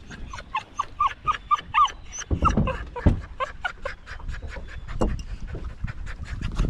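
A dog whining: a quick run of short, high whimpers, about four a second, in the first two seconds, followed by scattered clicks and knocks.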